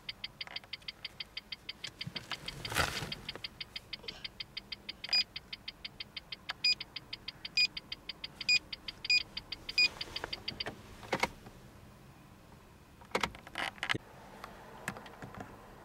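A car's turn-signal indicator ticking quickly and evenly, several ticks a second, and then stopping about two-thirds of the way through. Near the end come a few sharp switch clicks from the interior dome light being switched.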